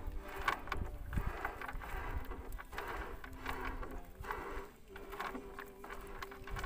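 Wind buffeting the microphone in an open boat on the river, with scattered light knocks and faint background music with held notes.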